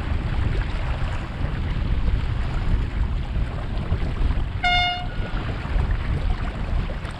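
Wind buffeting the microphone and water rushing along a small sailboat's hull under sail, with one short horn blast a little past the middle.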